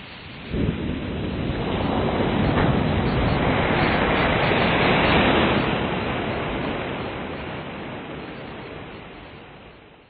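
Ocean surf crashing: a sudden deep rush about half a second in that swells, then slowly fades out.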